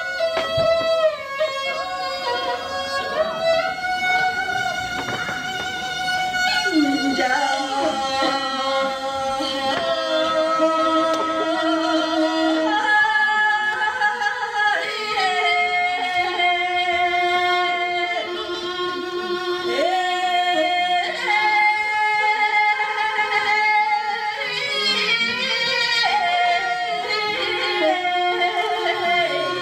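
A singer holding long notes and sliding between them over a bowed string instrument.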